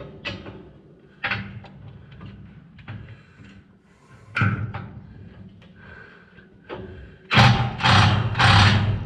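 Light metal knocks and clicks as a socket is worked onto a bolt, then about seven seconds in an impact wrench runs loudly in a few short goes, hammering the bolt tight.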